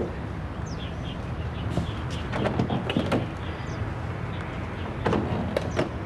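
Outdoor ambience of birds chirping now and then over a steady low background hum, with a few short sharp clicks and taps about halfway through and again near the end.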